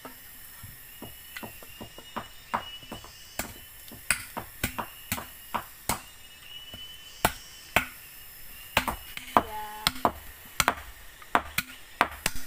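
A blade chopping into a length of green bamboo: sharp, irregular blows, one to three a second, coming faster and harder in the second half.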